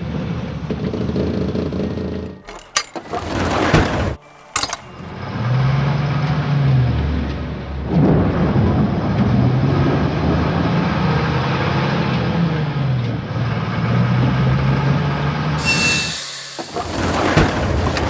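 Cartoon sound effect of a truck engine running and revving, its low pitch rising and falling, broken by a few sharp knocks about three to five seconds in. Near the end a loud noisy crash.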